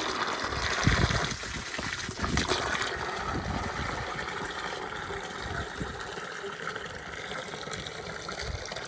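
Rinse water draining out of a portable mini washing machine's drain outlet in a steady trickling stream, stronger with a couple of low knocks over the first three seconds, then easing a little.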